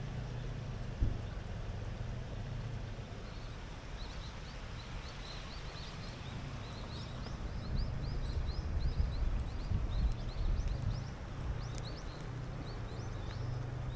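Small birds chirping in quick runs of short high calls, over a steady low rumble.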